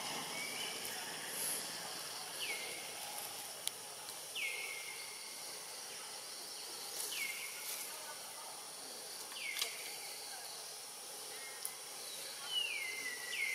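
Outdoor ambience with an animal's repeated call, each one sliding down in pitch and then holding a short level note, about every two to three seconds, five times. A few sharp ticks and a steady high hiss run underneath.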